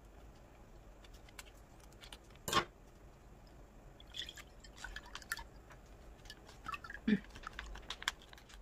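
Broth poured from a plastic pouch into an earthenware ttukbaegi pot: faint trickling and dripping, with the pouch crinkling as it is squeezed. A single sharp click about two and a half seconds in is the loudest sound.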